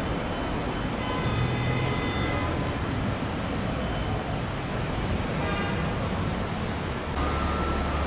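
Road traffic: a steady wash of cars and vehicles moving along the terminal roadway. A heavier low engine drone comes in about seven seconds in.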